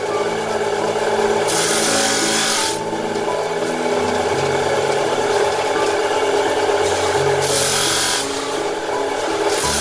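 Rasping, scraping sound of something held against the spinning wheel of a motor-driven factory machine, louder in two bursts of about a second, over background music.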